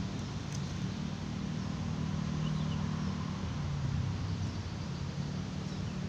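Steady low hum of distant traffic, with a few faint, short chirps of small birds over it.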